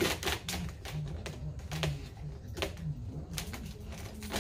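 Dog's paws and nails tapping and scuffing on a raised cot-style dog bed as it climbs on and turns around: an irregular run of sharp clicks and taps.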